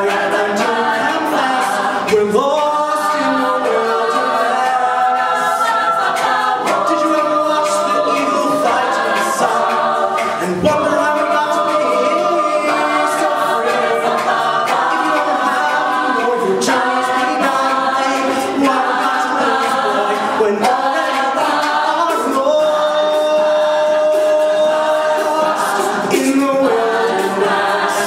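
Mixed a cappella group singing a Broadway show tune: a male lead voice over sung backing harmonies from men and women, with no instruments. One note is held steadily for several seconds near the end.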